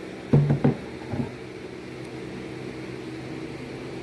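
A wooden pallet-board sign knocking against a wooden workbench as it is set down: a quick cluster of loud knocks about half a second in, then a lighter knock about a second in, over a steady background hum.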